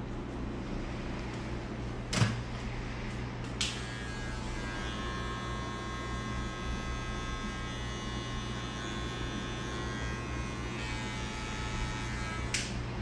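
Electric hair clippers buzzing while cutting a fade, over a steady low hum. A sharp knock comes about two seconds in, and a higher buzz starts with a click a little later and stops with a click near the end.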